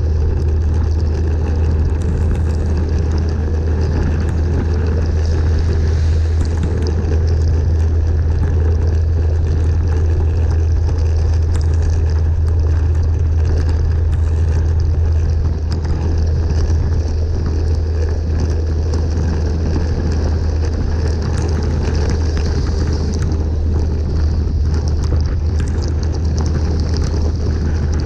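Steady road noise from a vehicle driving through heavy rain: a loud, constant low rumble with the hiss of tyres on the wet road and faint scattered ticks of raindrops.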